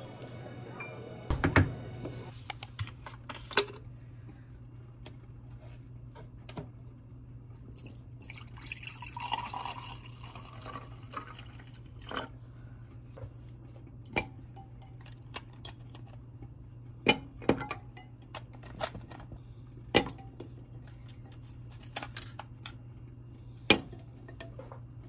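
Milk poured in a stream into a glass mug of coffee, a liquid pouring sound lasting a few seconds, with scattered sharp clicks and taps before and after it. A steady low hum runs underneath.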